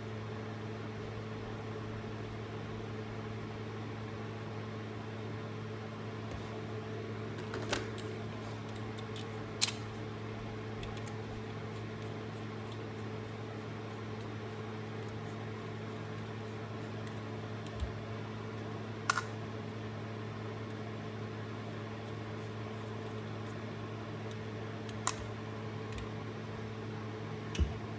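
Steady low electrical hum with a few sharp, isolated metallic clicks, most likely from the small Torx screws and driver of a Snap-on ratchet being handled during disassembly; the two loudest clicks come about ten and nineteen seconds in.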